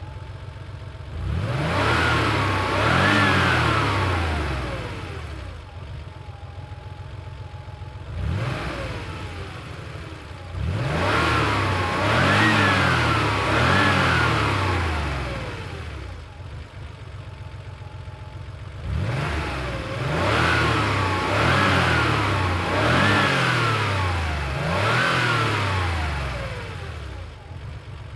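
1990 Porsche 911's air-cooled flat-six, recorded from behind the car, idling and blipped through repeated throttle revs in three groups: two quick revs, then two more, then four in a row. Each rev climbs and falls back to idle.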